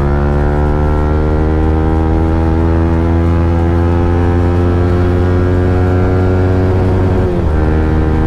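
Yamaha R15 M's single-cylinder engine pulling hard through a fitted aftermarket exhaust, its revs climbing steadily under acceleration. About seven seconds in the pitch drops sharply as the rider shifts up a gear.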